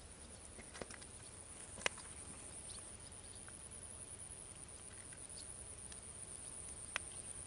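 Quiet outdoor background with a steady low rumble and a faint high hiss, broken by a few sharp clicks: two in the first two seconds and one near the end.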